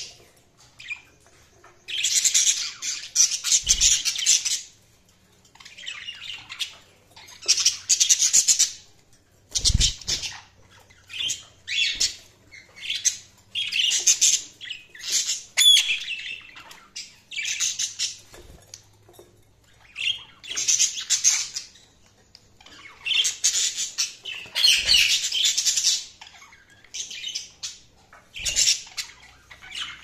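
Budgerigars chattering in warbling, squawky bursts a second or two long, separated by short pauses. A few dull thumps are mixed in, the strongest about ten seconds in.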